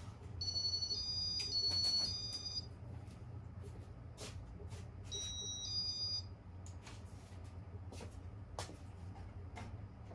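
Casablanca Victorian ceiling fan's electronic control sounding two short runs of high two-tone beeps, alternating between two pitches, over a steady low hum from the fan, with scattered light clicks.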